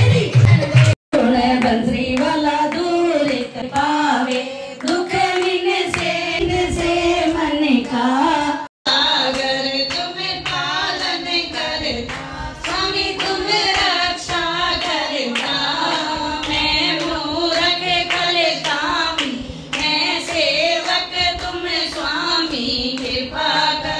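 A group of women singing a Hindu devotional song (kirtan), keeping time with hand claps. The singing drops out briefly twice.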